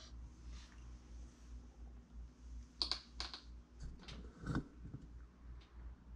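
Handling noise: a few light clicks and taps about three seconds in, then the loudest knock, with a low thud, about a second and a half later, over a low steady hum. It fits small sculpting tools and the stand being handled on a wooden workbench.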